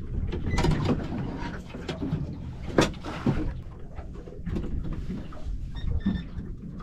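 Crab pot dropped over the side of a small boat: knocks as it goes over the gunwale and a sharp hit with a brief splash about three seconds in, over a steady low rumble of wind and water. A few short high chirps come near the end.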